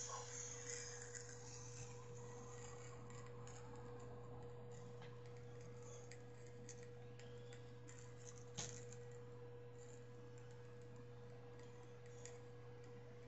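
Very quiet room tone: a steady low hum and a faint steady tone, with a few small handling clicks near the start and one sharper click about eight and a half seconds in.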